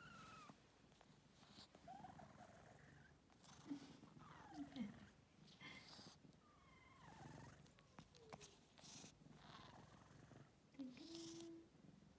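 Tabby kitten purring softly and steadily while its cheek and chin are stroked.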